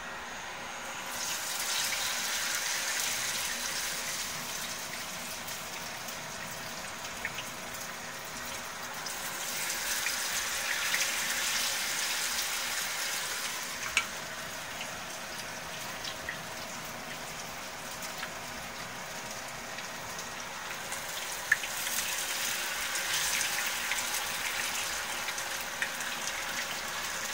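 Hot oil in a frying pan sizzling as battered onion and carrot strips fry, the sizzle swelling up three times as fresh batches go into the oil. A couple of sharp clicks stand out, one in the middle and one about two-thirds through.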